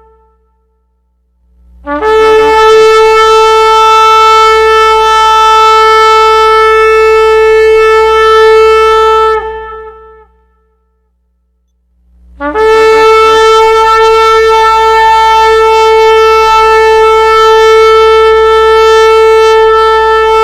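Ram's-horn shofar blown in two long, steady blasts, each lasting about seven to eight seconds. Each begins with a brief upward slide in pitch and is separated by a short pause.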